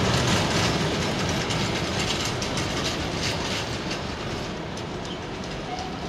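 Rear wagons of a freight train rolling away on the rails, wheels rumbling with scattered clicks and rattles, fading steadily as the train recedes.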